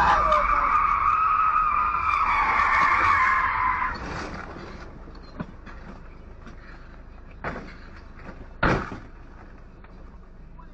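Tyres squealing for about four seconds as the cab is driven hard, then the squeal stops, leaving a low rumble broken by a few sharp knocks, the loudest near the end.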